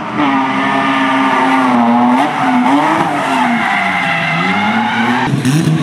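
Drift car's engine revving hard, its pitch repeatedly dropping and climbing as the throttle is worked through a slide, over tyre screech. About five seconds in the sound changes abruptly and a second engine note is heard crossing the first.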